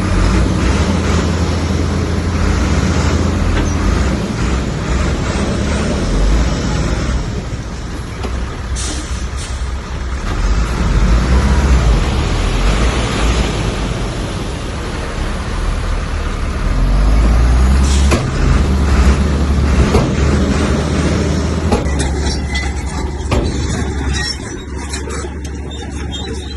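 Heavy diesel earthmoving machinery running loud and steady, its engine note rising and falling with the work, with a few brief sharp sounds about a third and two-thirds of the way in.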